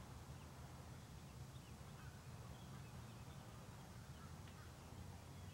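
Near silence: faint outdoor room tone with a steady low hum, and a few faint, scattered chirps.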